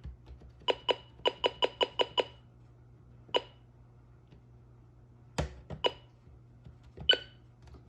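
Buttons being pressed on a weather alert radio receiver: a quick run of about eight short beeping clicks, then a few single ones spaced out, with a heavier handling knock about five seconds in.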